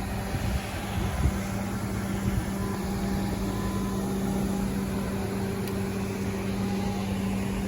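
Steady machine hum: a constant low tone with an even hiss, unchanging throughout.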